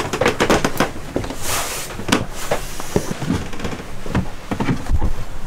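Irregular knocks, clicks and clatter, with a brief hiss about a second and a half in and a few dull thumps near the end: handling noise as a stainless steel cup is picked up from among dishes and carried.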